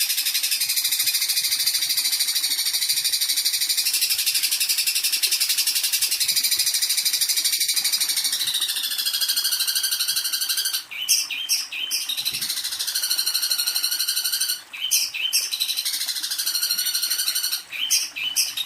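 Recorded songbird calls played as a masteran (song-training) track: a dense, rapid high-pitched trilling that breaks into repeated short phrases with brief gaps about eleven seconds in.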